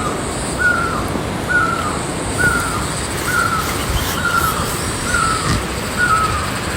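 A bird calling over and over, a short slightly falling call about once a second, over a steady high-pitched whine and background noise.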